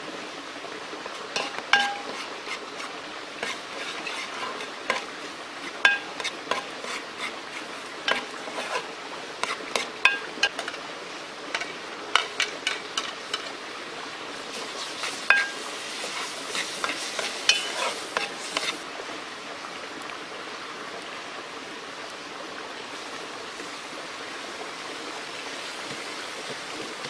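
A metal ladle stirring and scraping in an aluminium pot, tapping the pot with short ringing clinks as onions, tomato paste and tomatoes fry over a wood fire. A sizzle grows about halfway through; the clinking stops after about two-thirds of the way, leaving a steady hiss.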